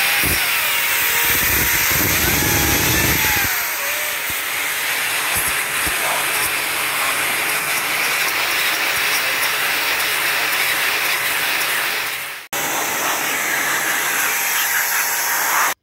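Pressure washer spraying a jet of water onto a computer power supply's cooling fan and then its metal case: a loud steady hiss of spray that breaks off for an instant about twelve seconds in.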